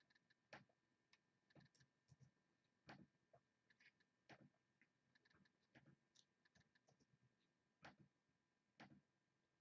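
Faint, irregular clicks of a computer mouse and keyboard against near silence.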